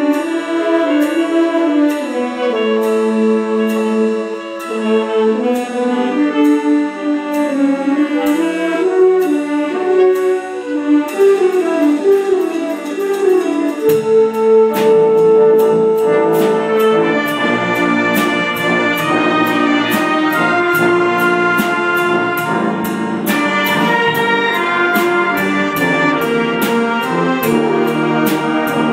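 A community concert band playing, with brass and saxophones carrying the melody over a steady percussion beat. About halfway through, low instruments come in and the full band plays together.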